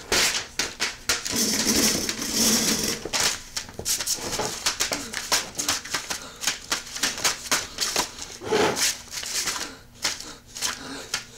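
Paper being handled and crumpled: a dense, irregular run of crackles and clicks.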